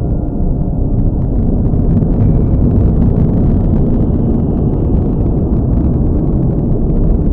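A deep, steady rumble with faint scattered crackles over it, holding level throughout.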